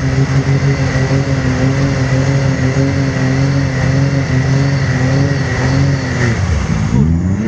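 Can-Am Maverick X3's turbocharged three-cylinder engine held at steady high revs for about six seconds, then the revs fall sharply and climb again near the end. The buggy is struggling in the bog with one drive axle torn off.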